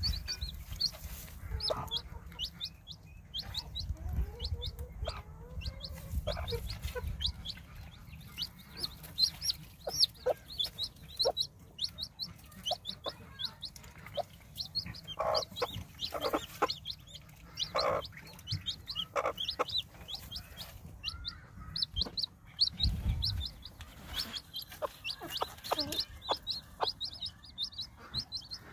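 A newly hatched chick peeping over and over in short, high chirps, with a mother hen clucking low now and then.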